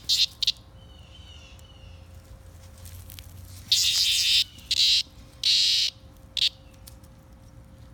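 A caught cicada buzzing in short, harsh bursts. There are two quick ones at the start, then four more from about halfway in, the longest close to a second.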